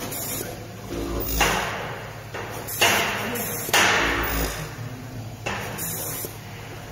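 Pick-and-place machine running in fast mode: a steady low hum, broken by three sudden bursts of hiss about a second apart, each fading over about a second, with a low thump under the first and last.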